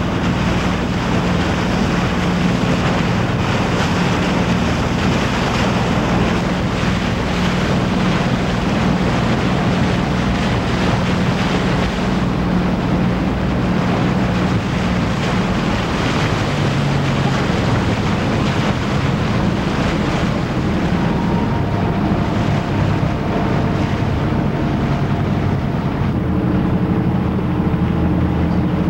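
A boat's engine running with a steady low hum, under heavy wind buffeting the microphone and the wash of water. In the last several seconds a second, higher engine tone joins in, as a sportfishing boat passes close by.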